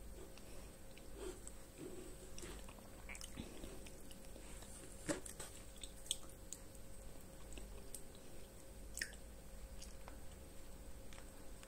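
Close-miked mouth sounds of someone eating yogurt off a metal spoon: soft wet smacks and swallows, with a few sharp clicks of the spoon, the loudest about five and six seconds in.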